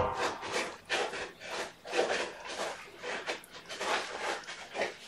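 Litter scoop raking through cat litter: quick, irregular gritty scraping strokes, several a second, after a sharp knock at the start.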